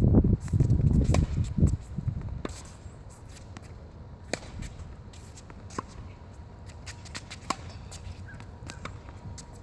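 Tennis ball struck by a racket: sharp single pops about every one and a half seconds, with fainter ticks between them. A loud low rumble fills the first two seconds.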